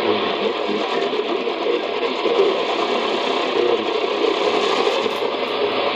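Radiwow R-108 portable shortwave receiver on 6070 kHz, its speaker giving a rough copy of a weak station: steady hiss and static with the talk programme buried and barely made out.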